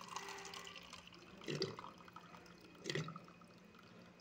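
Water running from an Esmaltec water dispenser's tap into a plastic cup, with two short louder sounds about a second and a half in and again at about three seconds.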